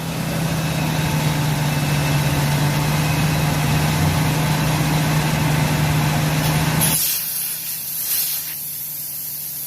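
Compressed air being dumped from an air-ride suspension system through its valves: a steady hiss with a low hum that cuts off about seven seconds in, followed by a shorter, thinner hiss. The pressure is being let down so the pressure switch will turn the air compressors back on.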